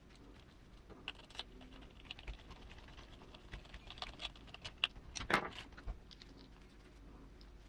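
Irregular light clicks and taps of small plastic and metal parts being handled while RC crawler wheels and tires are fitted, with a louder clatter about five seconds in.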